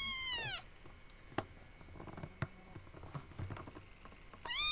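Kitten meowing: a high, drawn-out mew that drops in pitch as it ends, then another starting near the end. In between, a few light clicks and knocks.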